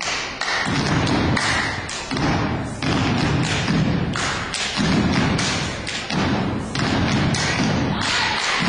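Step team stepping: stomps and claps beaten out together in a steady, fast rhythm.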